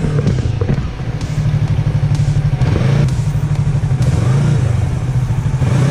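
Motorcycle engine running at low, fairly steady revs while riding, with a couple of slight rises in pitch from small throttle openings, about three seconds in and again about four and a half seconds in.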